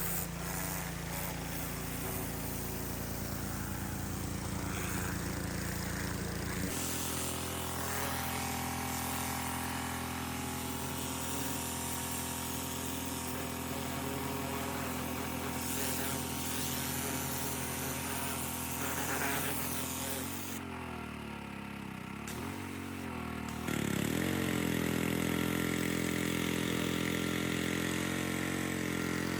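A small engine running steadily. Its sound shifts abruptly about seven seconds in; about twenty seconds in the pitch sags, and it picks back up a few seconds later.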